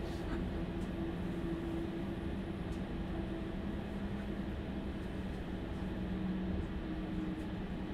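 Steady hum inside a Stadler Class 755 FLIRT bi-mode train standing at a station, its diesel power pack idling: a low rumble with two held tones over it.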